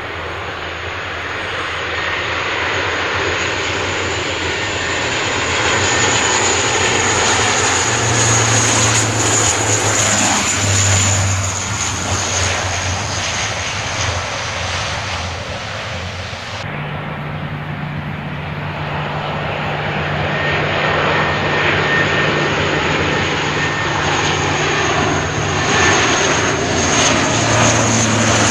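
Boeing C-17A Globemaster III's four turbofan jet engines running loud and close: a high steady whine over a deep rumble and roar that swells, eases off and builds again. About two-thirds of the way in, the high hiss drops off abruptly.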